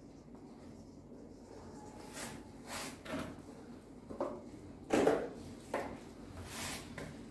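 Marker pen writing on a whiteboard: a string of short, scratchy strokes, with a louder short sound about five seconds in.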